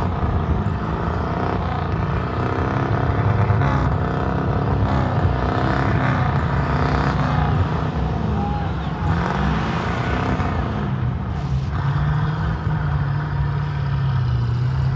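An off-road vehicle's engine revving and easing off repeatedly as it works over a dirt mound obstacle, with people's voices around it.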